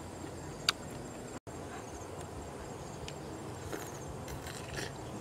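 Faint eating sounds of squid being chewed and sucked in, over a steady insect chirp in the background. One sharp click about two-thirds of a second in, and the sound cuts out for an instant about a second and a half in.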